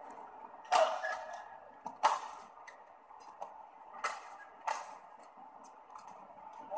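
Badminton rally: rackets striking the shuttlecock with four sharp cracks one to two seconds apart, with fainter ticks between them over a steady hall hum.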